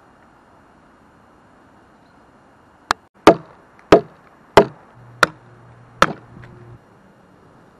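Fiskars X7 hatchet chopping wood: six sharp blows in quick succession, about one every two-thirds of a second, starting about three seconds in. The first blow is lighter.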